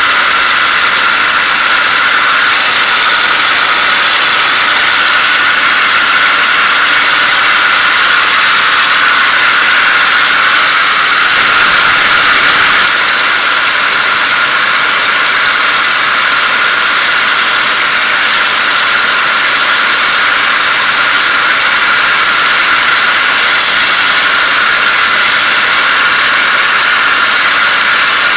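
P-51 Mustang's V-12 engine and slipstream heard from inside the cockpit: loud, steady running with a high whine over the noise, briefly a little louder about twelve seconds in.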